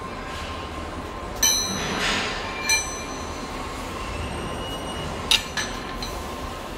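Metal clinking against a steel pipe flange as tools and a spirit level are handled and set against it: three sharp clinks, about a second and a half in, near three seconds and past five seconds, the first ringing briefly, over a steady workshop hum.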